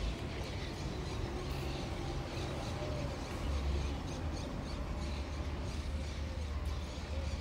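Swallows twittering in short repeated calls over a steady low outdoor rumble, from a field recording.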